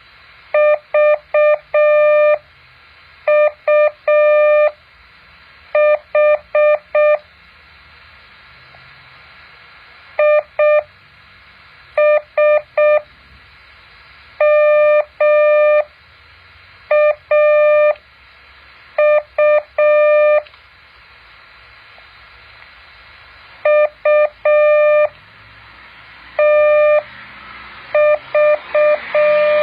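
Morse code practice tones: a single steady mid-pitched beep keyed into dots and dashes, sent as separate characters with pauses of a second or more between them, over faint background hiss.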